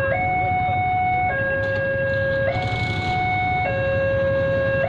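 Railway level-crossing warning siren sounding a two-tone high-low alarm, each tone held about a second before switching, over a low rumble underneath.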